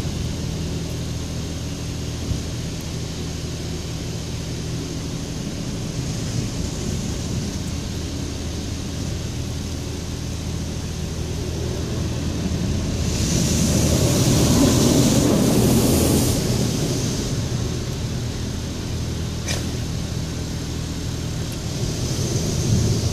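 Automatic car wash heard from inside the closed car: a steady low hum throughout, with a swell of rushing water spray against the body and windows from about 13 to 17 seconds in.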